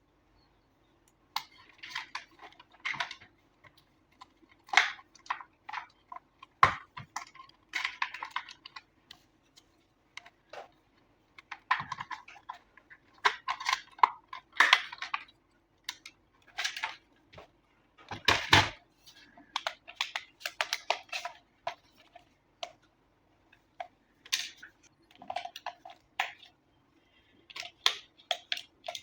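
Hands handling a toy RC drift car and its packaging: irregular plastic clicks, taps and short rustles, some sharp, over a faint steady hum.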